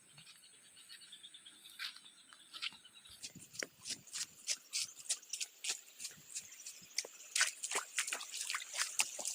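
Water splashing and dripping in quick, irregular splashes, getting much busier about three seconds in.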